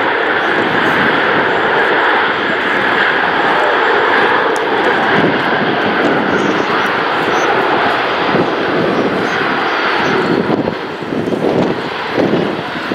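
Antonov An-225's six turbofan engines running loud and steady as the aircraft rolls out after landing. The sound eases and turns uneven about ten seconds in.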